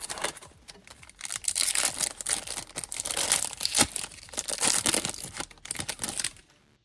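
Crinkling and tearing of the plastic foil wrapper of a Topps baseball card pack being ripped open, a dense crackle of many sharp crinkles that stops abruptly near the end.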